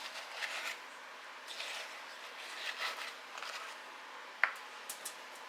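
A spoon scooping a sticky white-chocolate-coated ramen and nut mixture from a bowl and dropping it onto a lined sheet: a few soft scrapes, then one sharp click about four and a half seconds in.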